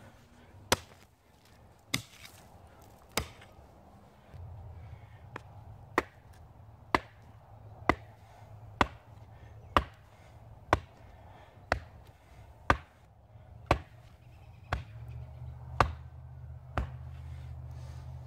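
A rock pounding a small wooden cross post into soft dirt: sharp wooden knocks at a steady pace of about one a second. A low steady hum runs underneath.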